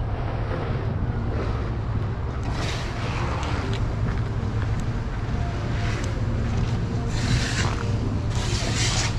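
City street traffic: a steady low rumble of vehicles, with a few passing cars swelling up as a hiss, and wind on the microphone.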